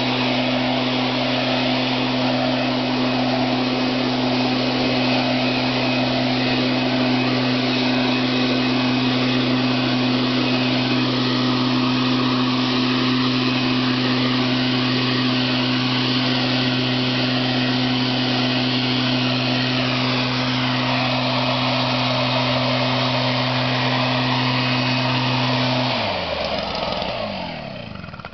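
Petrol leaf blower running steadily at full power, a loud droning engine note under a broad rush of air. Near the end the engine winds down, its pitch falling away.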